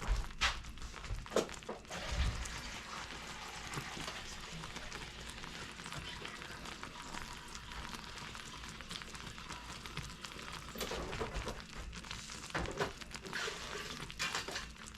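Butter toffee syrup of butter and sugar boiling hard in a pan at about 275–280°F, a steady bubbling sizzle. A few clinks and knocks, like a utensil against the pan, come near the start and again near the end.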